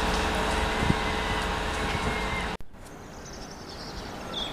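Steady outdoor railway-station background with a low hum from a diesel freight train approaching in the distance. The sound cuts off abruptly about two and a half seconds in, leaving a quieter background.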